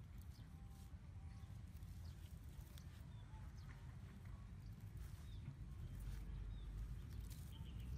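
Light clicks and knocks of a woven bamboo trap being handled and tipped upside down on the ground, over a low rumble that grows louder about six seconds in, with a few short chirps.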